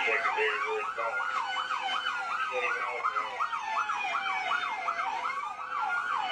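Several police car sirens sounding together: one fast yelp warbling about three times a second over a slower wail that rises and falls over several seconds.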